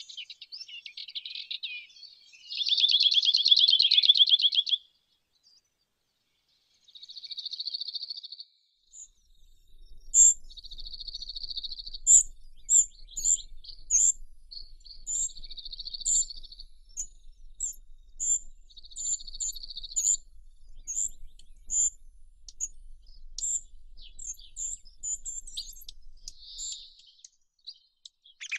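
Birds calling: a series of buzzy trills of a second or two each, the loudest about three seconds in. From about ten seconds on, short high chirps repeat roughly twice a second between the trills.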